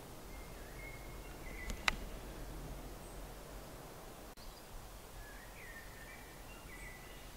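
Woodland ambience with faint birdsong: short thin whistled notes near the start and again in the second half. A single sharp click sounds about two seconds in.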